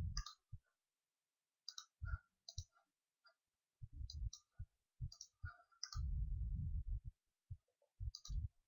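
Computer mouse buttons clicking several times, often in quick pairs like double-clicks, with dull low rumbles in between.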